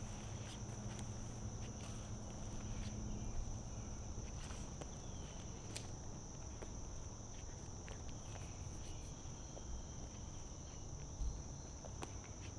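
A steady, high-pitched chorus of insects in the woods, with the scattered light crunches of footsteps on dry leaf litter.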